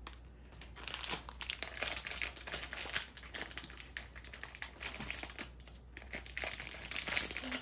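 Foil blind-box pouch crinkling as it is handled, a dense run of crackles with a short lull about six seconds in.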